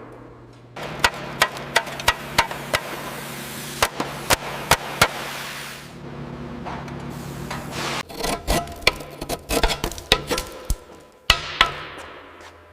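Hammer blows, sharp and irregular: spaced strikes in the first half, then a faster, denser run near the end, over background music.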